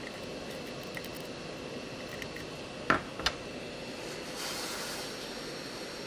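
Steady air hiss of an 858D hot air rework station blowing at full airflow, with a faint steady high whine. Two sharp clicks come about three seconds in, and the hiss turns brighter for about a second past four seconds in.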